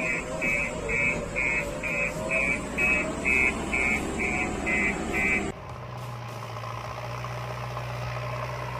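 Vehicle reversing alarm beeping about twice a second over a running engine. It cuts off abruptly about five and a half seconds in and gives way to a steady low engine hum.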